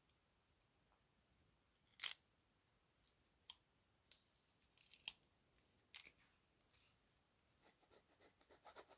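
Faint scattered clicks and taps from a pen being handled over a sketchbook, then a quick run of short scratchy pen strokes on paper near the end.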